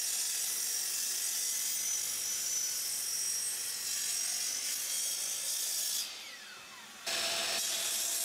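Chop saw (miter saw) running as it crosscuts glued-up wood blanks into blocks: a high motor whine over a steady hiss. About six seconds in the motor spins down in a falling whine, then the steady sound returns abruptly about a second later.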